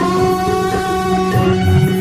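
Instrumental passage of a Gujarati devotional bhajan: a plucked string instrument plays a melody over steady held drone notes.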